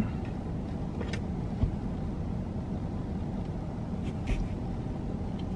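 Steady low hum of background noise inside a parked car, with a few faint clicks and a soft knock as a cookie is handled and eaten.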